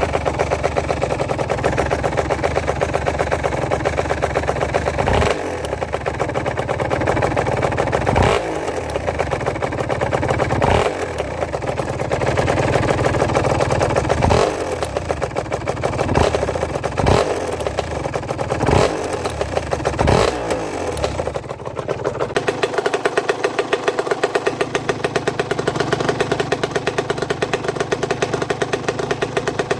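Aprilia RS 125's single-cylinder two-stroke engine running and blipped up several times, then settling to a steady idle for the last third. It carries a knocking noise that the owner cannot trace, having already checked the small-end and big-end bearings.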